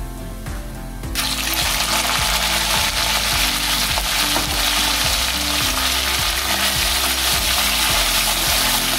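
Raw chicken pieces go into hot ghee with carom seeds in an aluminium kadai, and a loud sizzle starts suddenly about a second in and keeps going as the meat fries. Toward the end a steel spatula stirs and turns the pieces in the pan.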